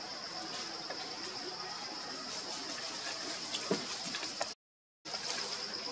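Outdoor forest ambience: a steady high insect drone over a soft hiss, with a few faint clicks. The sound cuts out completely for about half a second, around three quarters of the way through.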